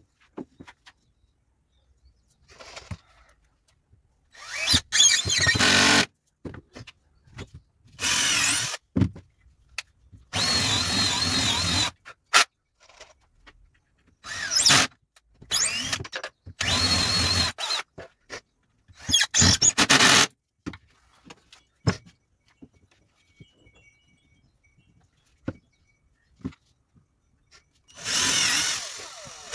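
Power drill running in short bursts of one to two seconds, about eight times, with small knocks and clicks of handling wood between bursts: typical of screws being driven into wood.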